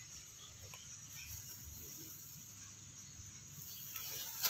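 Quiet background: a faint steady high hiss with a few soft ticks, and a sharper click near the end.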